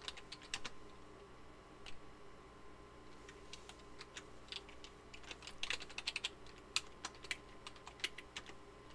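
Typing on a computer keyboard: scattered key clicks, with a quicker run of keystrokes about six seconds in, over a faint steady hum.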